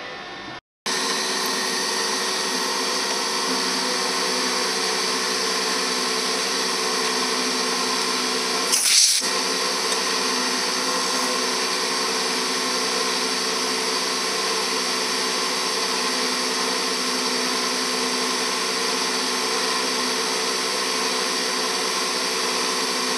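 Sharp vertical milling machine running, its end mill cutting a slot for a #10 socket head screw in a clamp: a steady machining whine with several steady tones. There is a brief louder rasp about nine seconds in.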